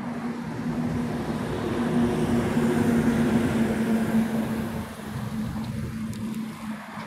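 A car drives past close by, its engine and tyre noise swelling as it approaches, loudest about three seconds in, then fading as it goes away. A steady low hum sounds underneath throughout.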